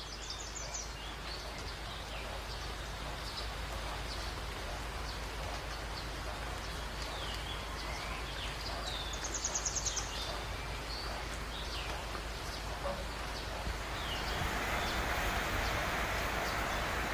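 Small birds chirping again and again over a steady hiss, with a short rapid trill now and then. The hiss grows louder near the end.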